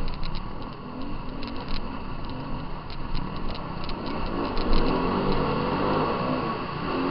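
Off-road dirt bike engines revving up and down on a hare scramble trail, growing louder and enclosed about halfway through as the bikes ride through a culvert pipe.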